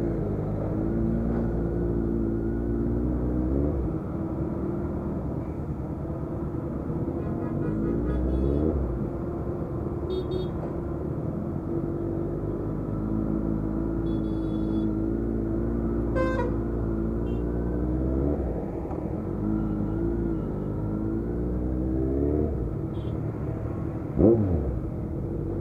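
Motorcycle engine at low speed in stop-and-go traffic, its note rising and dropping again and again as the throttle is opened and closed, with one short, loud rev near the end. Vehicle horns honk faintly now and then.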